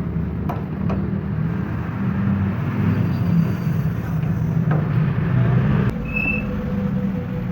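Steady low mechanical rumble like a running engine, with a few faint clicks and one short high tone about six seconds in.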